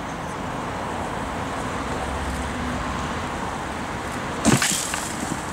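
A single sudden loud bang about four and a half seconds in, over steady outdoor background noise, with a couple of faint clicks just after it.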